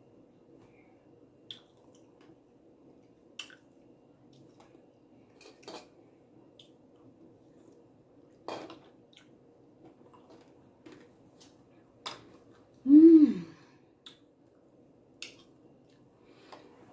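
Eating sounds from a bowl of berries and granola: a spoon clicks against the bowl now and then amid soft chewing. About thirteen seconds in there is one loud, short voiced sound that falls in pitch.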